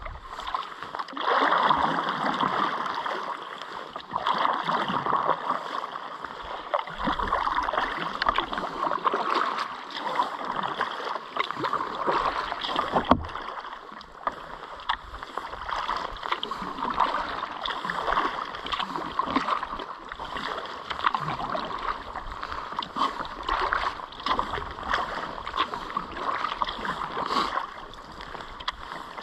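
Kayak paddle strokes in river water: the blades dipping and splashing in a steady rhythm, swelling about every two seconds, with one sharp knock about halfway through.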